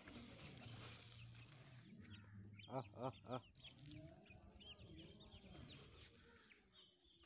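Faint hen clucking: three short clucks in quick succession about three seconds in, with faint high chirps scattered around them.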